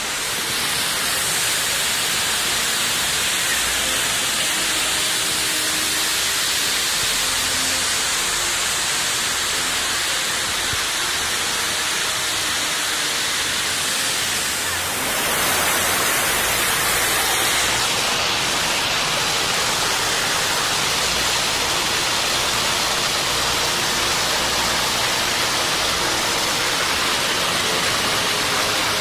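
River water rushing through rapids over boulders: a steady, loud rush of white water that gets a little louder about halfway through.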